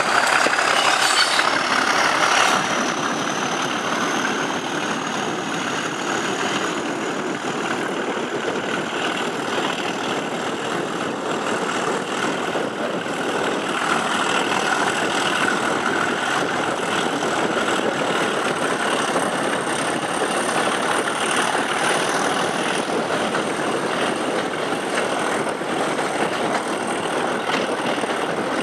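A pair of class 37 diesel locomotives, English Electric V12 engines, working hard at the head of the train and heard from the coaches behind, mixed with rushing air and wheel noise. A high whistle rises in pitch over the first couple of seconds and then holds.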